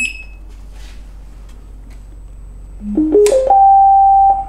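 Gotway Nikola Plus electric unicycle powering on through its built-in speaker: a short beep, then about three seconds in its startup tune, a quick run of rising notes ending on one held note of about a second. The tune is the wheel's power-on signal, and it is loud.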